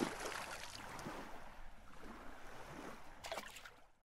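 Water and waves, splashing and washing, fading out to silence near the end.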